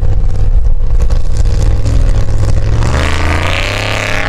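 Formula Offroad buggy's engine labouring under heavy load as it climbs a steep gravel slope, revving up hard about three seconds in.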